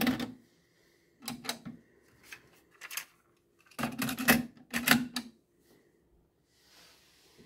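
Plastic clicks and clatter from the cassette door of a Teac W-600R double cassette deck: the deck II well opened, a cassette handled in it, and the door pushed shut. The clicks come in a few short clusters, the loudest about four to five seconds in.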